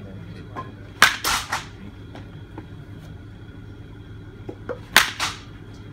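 Baseball bat hitting pitched balls in an indoor batting cage: two sharp cracks about four seconds apart, each followed by a brief rattle of noise.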